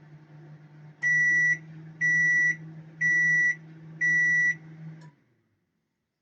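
Microwave oven running with a steady low hum, its fan lubricated and no longer squealing, then sounding four high end-of-cycle beeps about a second apart; the hum cuts off about five seconds in.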